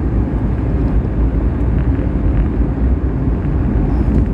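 Steady road noise of a car travelling at speed, tyres and engine heard from inside the cabin, with a deep even rumble and no changes.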